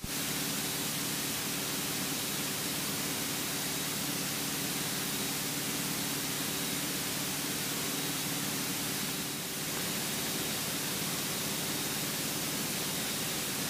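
Steady cockpit drone of a Cessna 172 in cruise: the engine and propeller give a low, even hum under a strong hiss, with a brief dip about nine seconds in.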